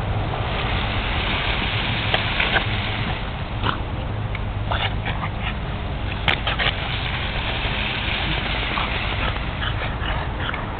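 Oscillating lawn sprinkler spraying with a steady hiss while French bulldogs snap at its water jets, making a dozen or so short, sharp noises now and then.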